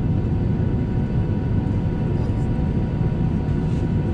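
Cabin sound of a Boeing 737-900ER on the ground, heard from a window seat over the wing: its CFM56-7B jet engines running at a steady low power, a dense low rumble with a few faint steady tones above it.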